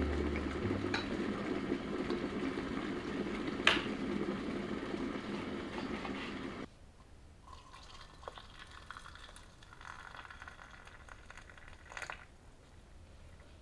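Soft background music with one sharp knife click on a wooden cutting board; the music cuts off abruptly about two-thirds of the way in. Then water pours in a thin stream into a glass cup holding lemon slices, a faint steady trickle until near the end.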